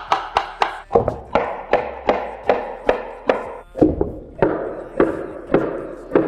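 Kitchen knives chopping lettuce on a wooden cutting board: a steady run of knocks, about three a second.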